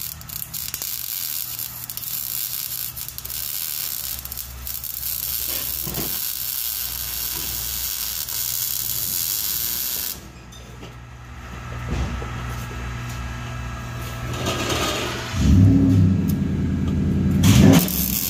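Wire-feed (MIG) welder arc crackling and sizzling steadily as it welds a straight pipe into a car's exhaust. It stops abruptly about ten seconds in, and a louder weld runs a few seconds before the end.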